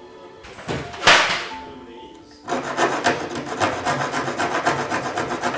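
Small hand file rasping at the edge of a hole cut in a glass-fibre bonnet panel: one long stroke about a second in, then from about halfway a quick, even run of short strokes, around six a second.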